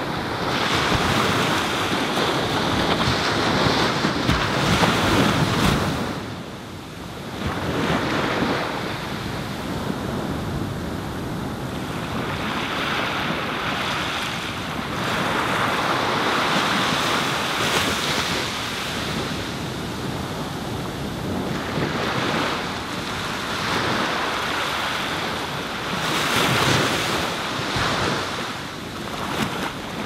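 Small Pacific Ocean waves breaking and washing up a sandy beach, a steady rush of surf that swells and ebbs every few seconds, with a brief lull about six seconds in. Wind buffets the microphone at times.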